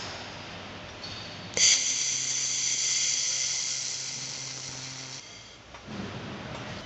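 Handheld fiber laser welder firing in one weld lasting about three and a half seconds: a high, steady whine and hiss that starts abruptly and cuts off suddenly.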